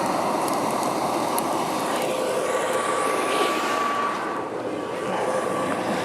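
Forced-air blast into a charcoal hearth furnace: a steady rushing roar of air and burning charcoal, with a faint steady whine from the blower that appears about two seconds in. The loudness dips slightly past the middle.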